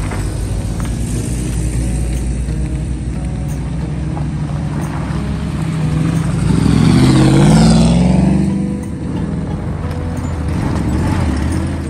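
Engines of classic military off-road vehicles driving slowly past one after another. Loudest about six to eight seconds in, as a Land Rover 101 Forward Control with its V8 passes close, its engine note rising and then falling away; a second vehicle's engine swells near the end.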